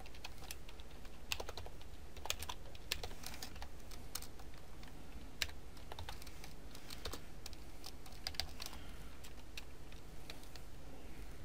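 Typing on a computer keyboard: irregular runs of quick keystrokes, thinning out near the end.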